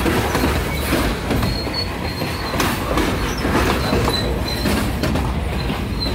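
Freight train cars rolling past at close range: a steady rumble of wheels on rail with scattered clacks as the wheels cross rail joints.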